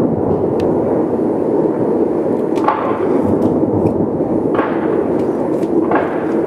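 Fireworks display: a continuous rumble of shells bursting, with three sharper bangs about three seconds in, again a couple of seconds later, and near the end.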